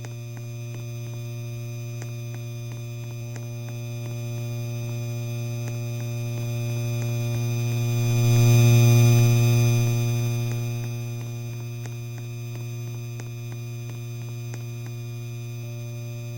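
Electric fan motor humming steadily, with faint clicks running through it. The hum swells louder about halfway, then eases back.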